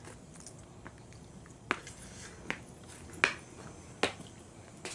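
Weight-training equipment knocking in a gym: five short, sharp clicks and clanks in a fairly even rhythm, a little under a second apart, over a faint steady background.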